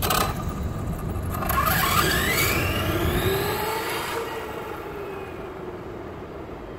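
Losi LST XXL-2 RC monster truck accelerating hard away from the microphone: a whine that climbs in pitch over its rumble, then fades away as the truck drives off into the distance after about four seconds.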